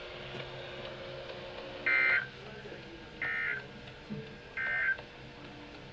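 NOAA Weather Radio EAS end-of-message signal: three short SAME digital data bursts, each about a third of a second and roughly 1.4 s apart, marking the close of the Required Weekly Test.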